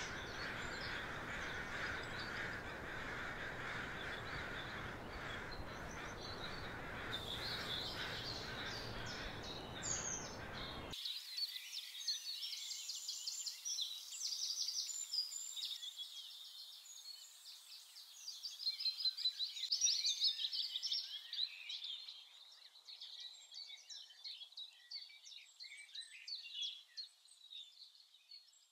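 Birds singing in the countryside, a chorus of small songbirds with rapid trills and chirps. For the first eleven seconds or so they sing over a steady rushing background noise, which cuts off abruptly, leaving the birdsong on its own.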